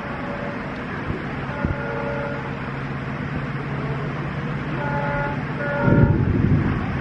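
Approaching WDP4 diesel locomotive, its engine running as a steady low drone. It sounds short horn toots about two seconds in and again twice around five to six seconds in. A loud low rumble swells near six seconds.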